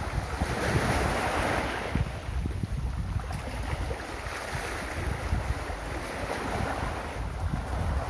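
Ocean waves rolling gently onto a beach: a continuous wash of surf that swells twice, once early and once near the end, with wind rumbling on the microphone underneath.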